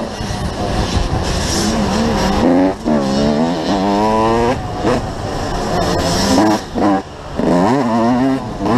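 Motocross bike engine revving hard while riding, its pitch climbing and falling with the throttle and gear changes, with brief drops in level a few times.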